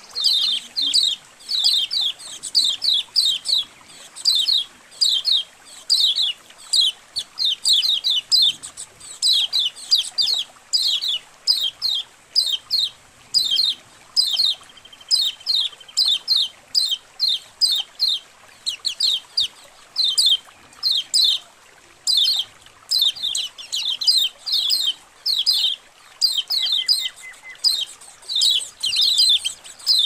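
A colony of yellow white-eyes (kecial kuning) chirping: dense, overlapping runs of short, high, down-slurred chirps with brief gaps. It is a training (masteran) recording meant to get caged white-eyes to start singing.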